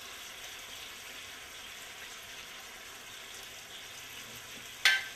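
Fish curry in a pan sizzling softly and steadily, with one sharp click near the end.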